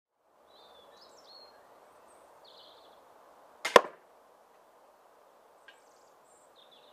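A shot from an 80lb pistol crossbow: one sharp, loud crack as the bodkin-tipped bolt is loosed and strikes six layers of denim over a soft foam backstop, just penetrating. Birds chirp faintly over a steady outdoor hiss, and there is a small click near the end.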